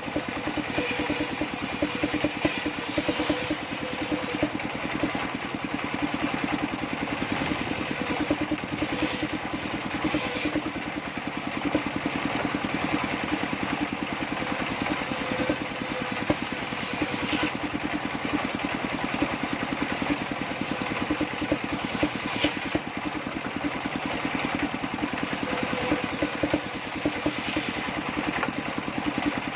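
Engine-driven sawmill circular saw running steadily, the engine's fast even firing going on without a break.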